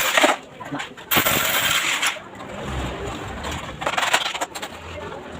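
Metal clinking and rattling: aluminum window and grill parts being handled during installation, in short bursts with sharp clicks.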